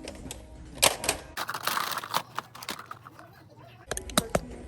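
Scattered sharp clicks and knocks, with a short rustling noise about a second and a half in and a quick cluster of clicks near the end.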